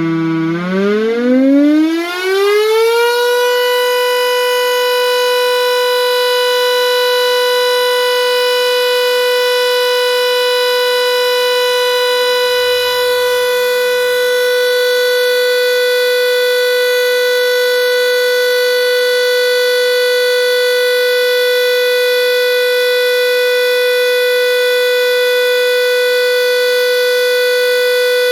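Secomak CS8 warning siren sounding, rising in pitch over the first few seconds and then holding one loud, steady tone.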